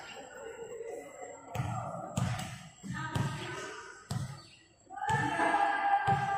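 A volleyball being hit and bouncing on a hard court floor: six or seven dull thuds at uneven intervals. Background music becomes louder about five seconds in.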